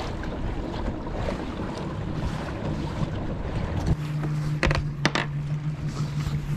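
Wind buffeting the microphone and water rushing past a moving kayak. About four seconds in this gives way to a steady low hum, with two sharp clicks shortly after.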